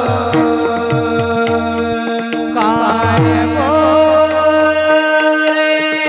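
Kirtan music: steady held accompanying notes and hand-drum strokes whose low notes bend downward, with an ornamented sung melody line coming in about halfway through.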